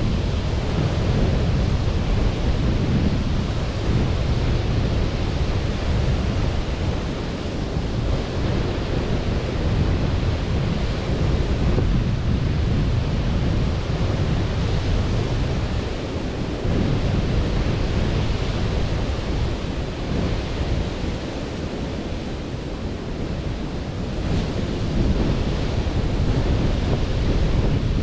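Sea surf washing onto a beach, a steady roar that swells and eases every few seconds, with wind rumbling on the microphone.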